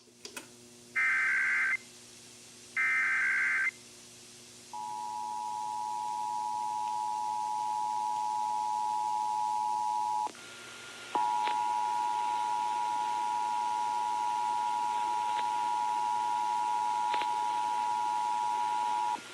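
Emergency Alert System Required Monthly Test audio: two short screeching SAME header data bursts, each just under a second. Then the two-tone EAS attention signal (853 and 960 Hz together) sounds steadily, drops out briefly about ten seconds in, and resumes until near the end. It is part of a test that failed.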